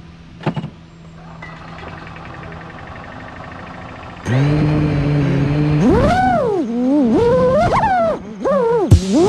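Drone motors and propellers whirring up suddenly, then whining higher and lower as the throttle changes during lift-off.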